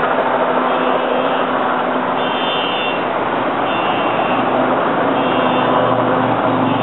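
Kaman K-MAX helicopter hovering, its rotors and turbine engine making a steady, unbroken drone.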